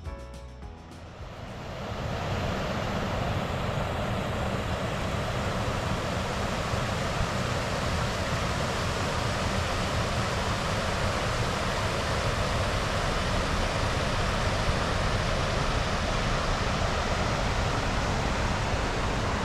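Rushing water: a steady, even rush that swells in over the first two seconds and cuts off abruptly at the end.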